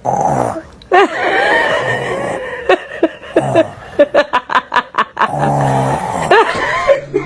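Loud, rasping snoring noises with drawn-out breaths. In the middle comes a run of short, quick pulses about four a second, mixed with laughter.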